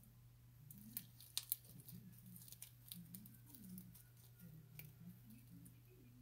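Faint clicks and crackles of slime being stretched and pulled in the hands, a cluster of sharper clicks about a second in, over a steady low hum.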